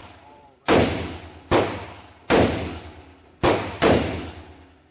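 Five rifle shots at uneven spacing, the last two close together, each followed by a short decaying echo.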